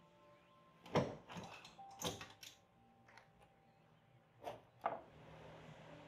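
Several sharp knocks and clunks of metal parts as the old refrigerator's compressor unit is handled: the loudest about a second in, another a second later, and a close pair a little before the end. Soft background music with held notes plays underneath.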